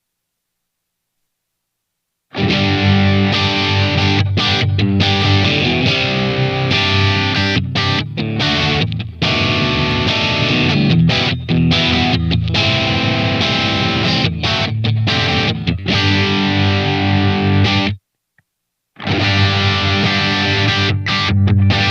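SLX Hawk Classic 22 HSS electric guitar played through distortion, a riff of chords and notes with brief stops. It starts after about two seconds of silence and cuts out for about a second near the end before coming back.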